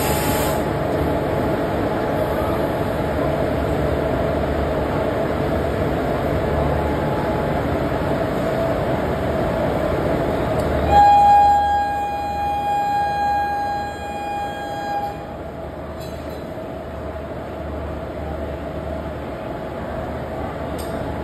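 Steady hum of an Indian Railways electric locomotive standing or easing up to a coach for coupling. About halfway through, a locomotive horn gives one long blast of about four seconds, the loudest sound here; then the steady running hum goes on.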